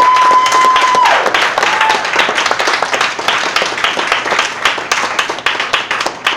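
Audience applauding at the end of a spoken-word poem: dense clapping that thins out near the end, with one long, high cheer over the first second and a shorter one about two seconds in.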